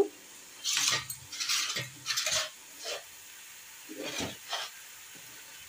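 A flat metal spatula scraping and stirring peanuts and onions frying in oil in a kadai, in about five or six short strokes, with a light sizzle between them.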